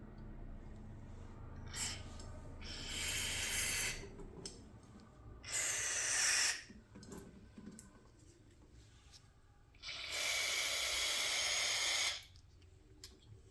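Three hissing bursts of pressurised spray blown through a small-engine carburetor to clear its passages: a short one about three seconds in, another about five and a half seconds in, and a longer one of about two seconds near the end.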